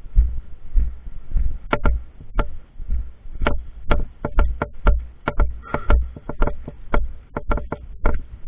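Walking footsteps that thud steadily on a body-worn microphone, about one or two steps a second, with sharp irregular clicks and knocks over them from about two seconds in.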